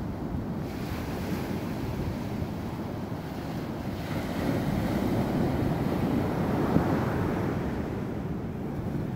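Ocean surf breaking and washing up a sandy beach. It swells to its loudest a little past the middle, then eases.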